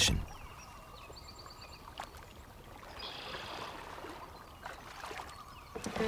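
Wooden canoe pushing off from a lakeshore and being paddled: soft splashing and dripping of paddles in calm water, with a light knock about two seconds in.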